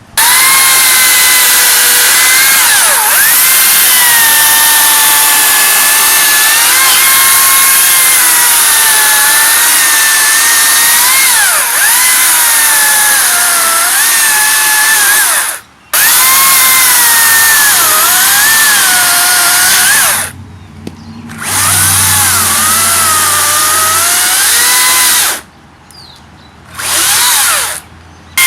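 Makita cordless electric chainsaw running with a high motor whine, its pitch sagging and recovering again and again as it is loaded. The motor stops briefly about halfway through, starts again, then cuts out twice more near the end with a short burst of running in between.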